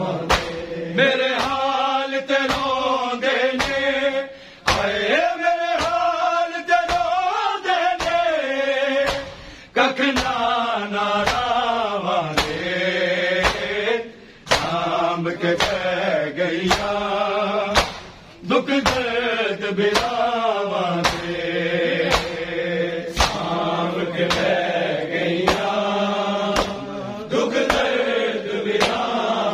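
Shia mourners' matam: a group of men chanting a noha in unison while slapping their bare chests with open palms in a steady rhythm, a little more than one sharp slap a second.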